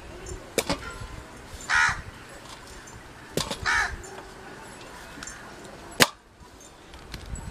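A crow caws twice, and a curved blade chops through a bottle gourd onto a steel plate in three sharp knocks, the last, about six seconds in, the loudest.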